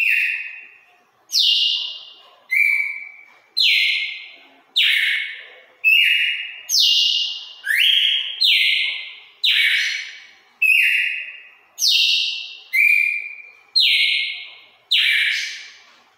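Caged red-cowled cardinal (galo-de-campina) singing a wild-type song. It is a steady run of about fifteen loud, clear whistled notes, roughly one a second, alternating between lower and higher pitches. Each note starts sharply and fades slowly in the tiled room.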